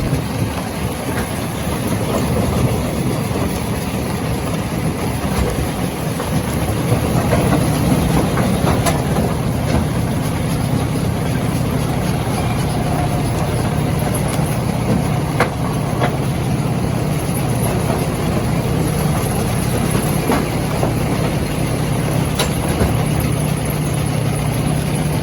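Stone crushing machine running with a steady, heavy mechanical rumble. A few sharp cracks or knocks stand out now and then.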